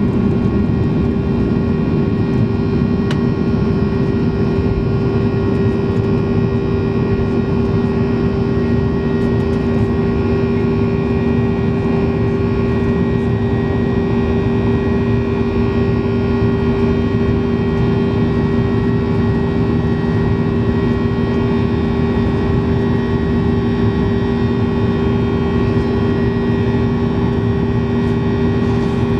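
Boeing 737-800's CFM56-7B turbofan engines running steadily, heard inside the cabin: a constant rush with a steady whine of several held tones.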